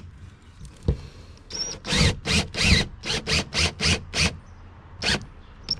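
Cordless drill with a nut driver driving a quarter-inch self-tapping hex-head screw through steel strut channel, run in short pulses of the trigger: a quick string of brief whirs from about two seconds in, and one more near the end.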